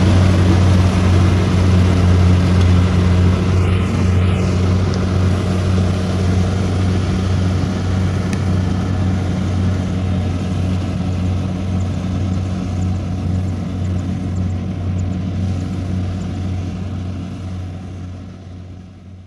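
Rice combine harvester's diesel engine running steadily with a deep, even hum, slowly getting quieter as the machine moves away, and fading out near the end.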